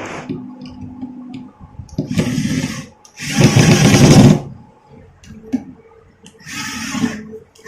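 Wooden table leg being twisted into place on a particleboard tabletop: a few bursts of scraping, rubbing noise, the loudest about a second long three seconds in.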